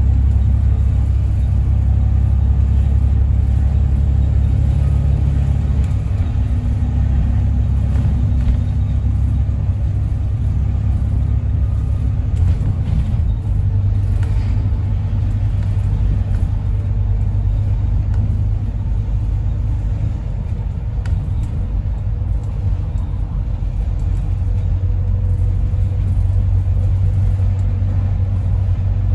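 A moving bus's engine and road noise heard from inside: a steady low rumble, with a few light clicks and rattles about halfway through.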